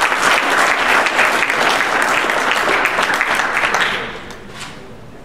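Audience applauding in a hall, a dense clatter of clapping that dies away after about four seconds.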